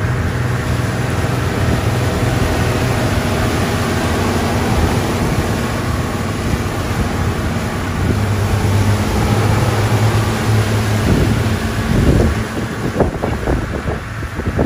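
A vehicle engine running steadily as a low hum, with wind rushing over the microphone.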